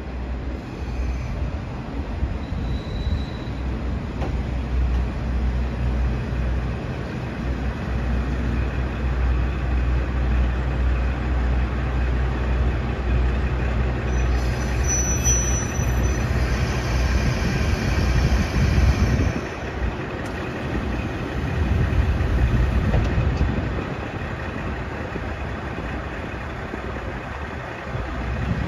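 KiHa 40/47 series diesel railcars pulling into a station, their diesel engines giving a steady deep drone. About halfway through a high squeal rises as the train brakes to a stop. After that the engines keep running while the train stands.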